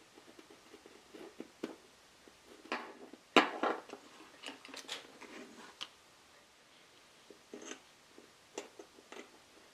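Small scratching and clicking sounds of hand work on wood veneer: a craft knife nibbling at the edge of the old veneer and a pencil tracing around a masking-tape patch. One sharper knock about a third of the way in is the loudest sound.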